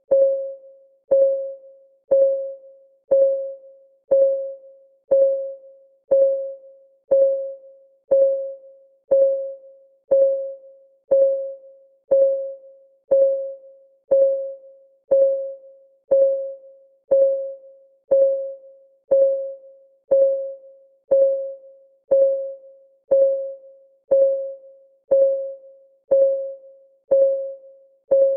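Clock ticking sound effect of a countdown timer, one tick a second, each tick a sharp click with a short ringing tone that fades quickly.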